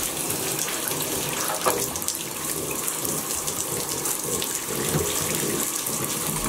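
Water running steadily into a bathtub from a hand-held shower sprayer, with small splashes.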